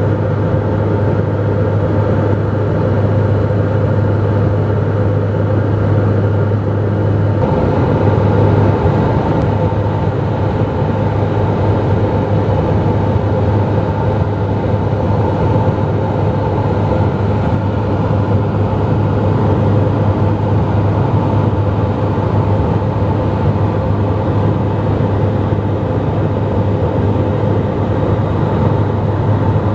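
Cabin noise of a Dornier 228 twin-turboprop in flight: a loud, steady engine and propeller drone with a constant low hum. The hum changes slightly about seven seconds in.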